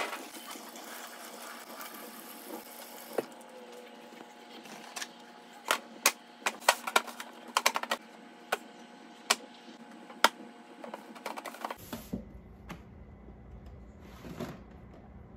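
A kitchen tap runs for about the first three seconds. Then come a series of sharp clicks and crackles from a disposable aluminium foil pan, handled as raw fish fillets are laid in it and patted dry with paper towel.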